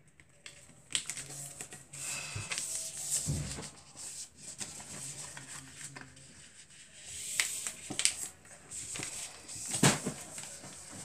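A sheet of A4 paper being folded and creased by hand on a wooden desk: irregular rustles, scrapes and soft taps as the paper is pressed flat and turned.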